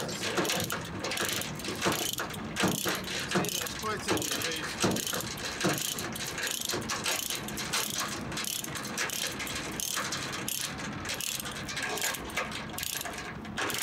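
Forged steel ratchet load binder clicking over and over as its handle is worked back and forth, the pawl ratcheting to draw a G70 transport chain tight.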